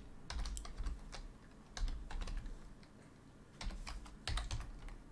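Computer keyboard being typed on: three short runs of key clicks with pauses between, as a command is entered letter by letter.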